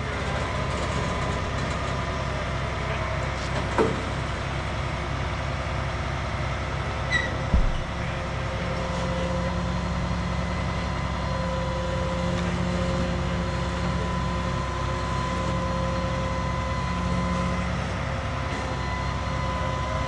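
Crane truck's engine running steadily to drive the truck-mounted knuckle-boom crane, with a steady whine over its low throb. Two brief knocks, about four and seven and a half seconds in.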